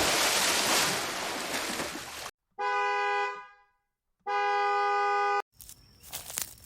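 A loud rushing noise lasting about two seconds, then a car horn honking twice, each honk a steady chord about a second long. Irregular rattling starts near the end.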